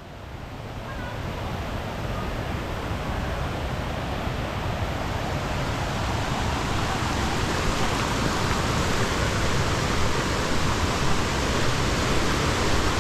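Waterfall rushing: a steady roar of falling water that grows gradually louder.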